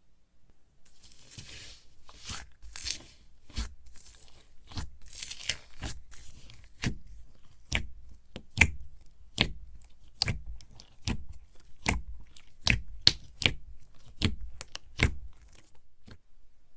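Thick white slime in a jar being pressed and poked with a fingertip. It crackles for the first few seconds, then gives a steady run of sharp, sticky clicking pops, a little more than one a second, that stop shortly before the end.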